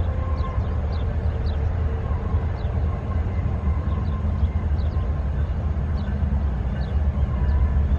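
Freight train rumbling steadily with a strong low, continuous rumble: the coal train's locomotives and cars. Faint short high chirps come over it about once a second.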